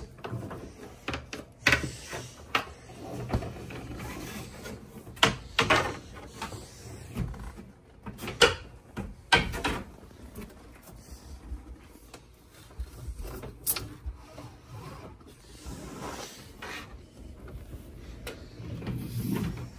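Network cable and a fish stick being pulled through a wall cavity, rubbing and scraping against the framing in irregular strokes, with a few sharper knocks and scrapes along the way.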